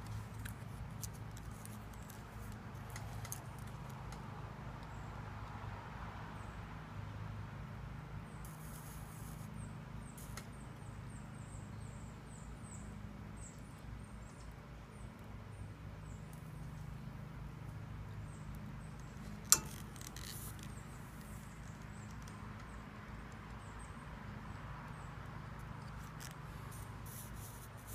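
Hot soldering iron tip being worked with solder wire and rubbed on the stand's damp sponge: faint scraping and small crackling ticks over a steady low hum, with one sharp click about two-thirds of the way through.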